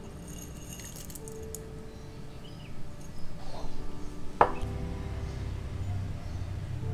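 Dried cloves tipped from a small ceramic bowl into a glass pot of water, a quick run of small clinks and ticks, then one sharp clink against glass about four seconds in, followed by a low steady rumble. Soft background music with held notes plays under it.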